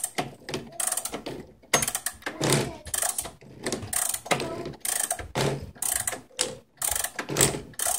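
A mechanical clock being wound with a key: the winding ratchet's click and pawl clicking in short rapid runs, about one to two runs a second, as the key is turned in repeated strokes.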